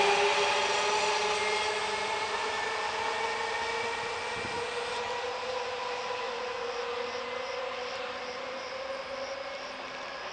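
Trenitalia E.464 electric locomotive pushing a double-deck train away from the platform: a steady electric whine whose tones rise slowly in pitch while the whole sound fades as the train draws off.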